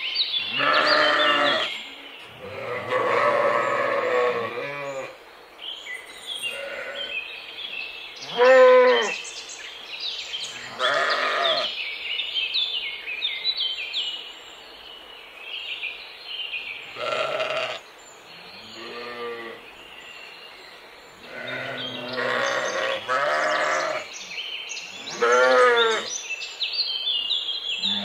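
Sheep bleating repeatedly: about nine wavering calls, each a second or so long, some lower-pitched and some higher, spaced irregularly.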